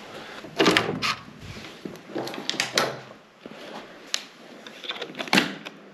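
Hotel room door being opened and handled: a string of sharp clicks and knocks from the latch and handle, the loudest just under a second in and again near the end.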